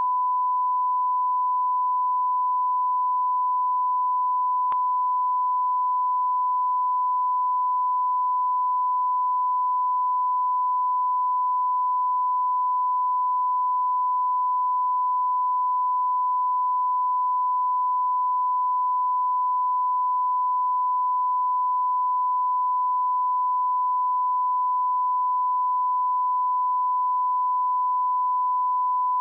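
Continuous 1 kHz line-up test tone, one steady pure pitch at a constant level: the reference tone that runs with colour bars at the head of a broadcast programme tape, for setting audio levels.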